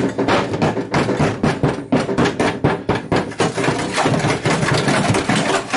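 Vacuum cleaner switching on and running, its nozzle knocking and scraping around the rusty metal floor of a snowmobile chassis as it sucks up loose rust and dirt, with irregular rattling clatter.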